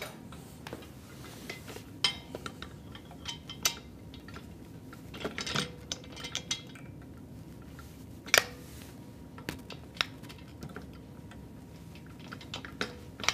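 Irregular metal clinks and clicks of steel pins and brackets as an electric actuator cylinder is fitted and pinned into the mounting holes of a patient lift, the sharpest about eight seconds in.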